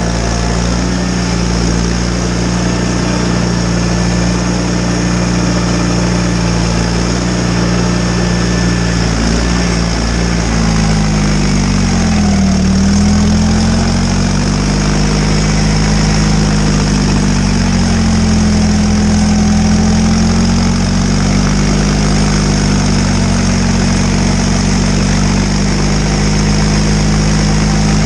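John Deere 318 garden tractor's twin-cylinder engine running steadily while driving a front snowblower. From about ten seconds in, the engine speed dips and recovers a few times.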